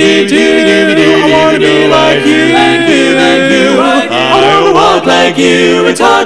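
Barbershop a cappella male vocal harmony singing held chords with no clear words, voices sliding in pitch about four to five seconds in.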